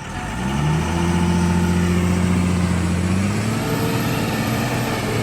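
Heavy diesel engine revving up and pulling hard under load as the vehicle climbs a rough slope. Its pitch climbs in the first half second, holds steady, then settles a little lower after about three seconds.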